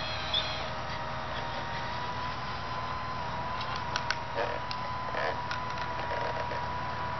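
Radio-controlled scale Hitachi excavator's electric drive whining steadily at a near-constant pitch as the boom and bucket move. About halfway through come a few sharp clicks and short scrapes as the bucket digs into the soil.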